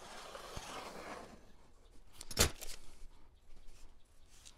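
Pencil drawing a line along a steel combination square on plywood: a scratchy stroke lasting about a second and a half. A little past halfway, a single sharp knock.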